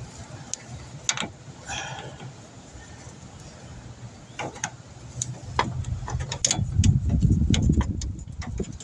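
Small metal clicks and clinks of hand tools and fittings being handled at the AC lines beside a car's compressor, with a low rumble that swells in the second half and is loudest near the end.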